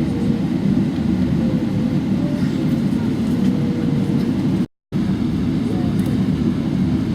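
Steady low rumble of a Boeing 777-300ER's cabin before takeoff, with faint voices in the background. The sound drops out completely for a moment about two-thirds of the way through.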